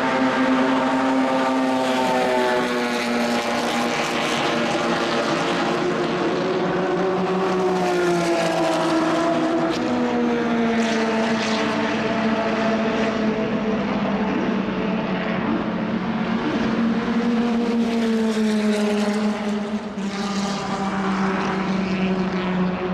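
1960s racing car engine running, a steady engine note whose pitch drifts slowly down and back up, with a brief drop about twenty seconds in.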